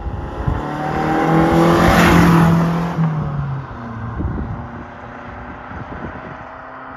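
A car engine swells loudly to a peak about two seconds in, like a car revving or passing by, then falls back to a lower, steady running note.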